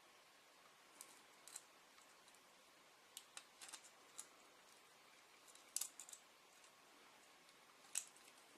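Faint, scattered small clicks and ticks of a large steel paperclip being handled and bent into the W-shaped tip of a rake lock pick, with near silence between them.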